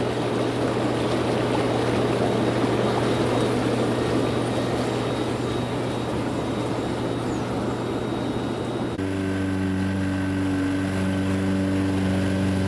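Petrol lawn mower engine running steadily at a constant speed. About nine seconds in, the sound changes abruptly to a cleaner, evenly pitched engine hum.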